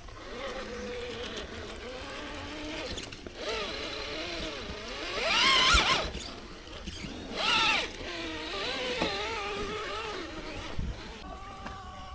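RC rock crawler's electric motor and gears whining as it is driven, the pitch rising and falling with the throttle. There are two louder rising sweeps about halfway through.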